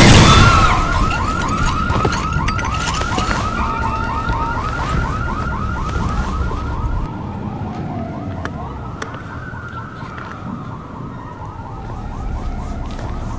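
A siren in fast yelp mode, about four rising-and-falling sweeps a second, switching about seven seconds in to a slow wail that rises and falls. A loud bang opens it.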